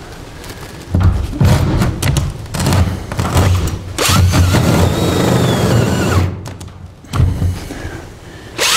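Cordless drill with a larger bit boring through an OSB wall lined with sheet metal, running in several loud bursts with short pauses between them. The drill is struggling, which the owner puts down to a battery that needs replacing.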